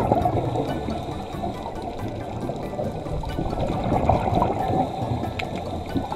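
Underwater water noise on the camera: a muffled rushing and bubbling that swells near the start and again about four seconds in.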